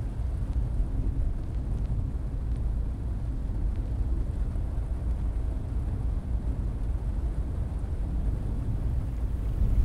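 Car driving, a steady low rumble heard from inside the cabin.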